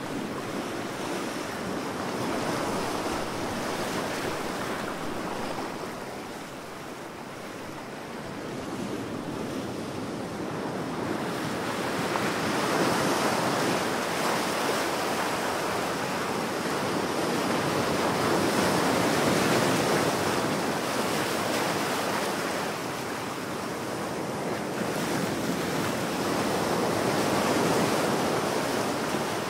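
Heavy ocean surf, a dense rushing wash of breaking waves that swells and fades in slow surges every several seconds.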